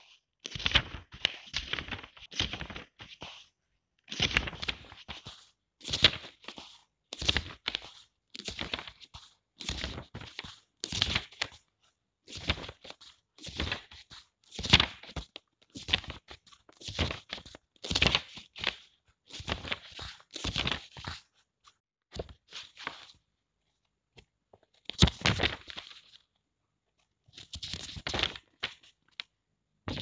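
Pages of a paper book being opened and turned one after another, each turn a short papery rustle. The turns come about one a second, with a couple of longer pauses near the end.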